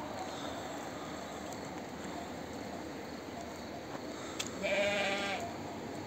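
A sheep bleats once, a short wavering call lasting under a second, about three-quarters of the way through.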